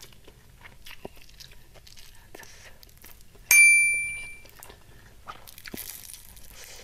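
A bright bell-like ding sound effect about three and a half seconds in, ringing out and fading over about a second. Around it, faint crunching and chewing from eating, with a soft crackle near the end as a piece of fried stuffed tofu is torn open.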